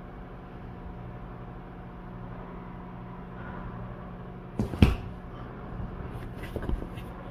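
Washing machine running in its spin cycle, a steady hum. About four and a half seconds in there is a single loud knock, followed by a few faint clicks.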